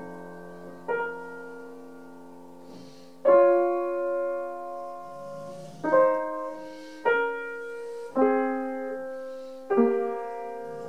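Upright piano played slowly, six chords struck one after another and left to ring and fade between strokes.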